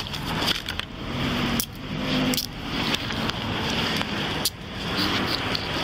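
Body-camera microphone rustling and rubbing against an officer's uniform as handcuffs are put on a man lying on the pavement, with a few sharp clicks through it.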